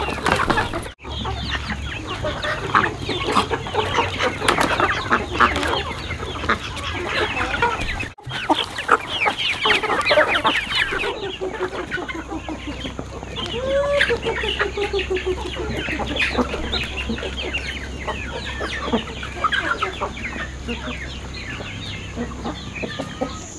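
A flock of chickens clucking and calling as they crowd around feed, many short calls overlapping.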